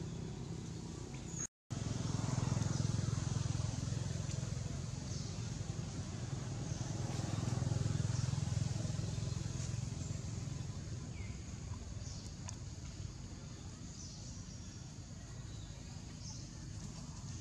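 Outdoor ambience: a steady low rumble like distant engine traffic, with faint high bird or insect chirps now and then. The sound cuts out completely for a moment about one and a half seconds in.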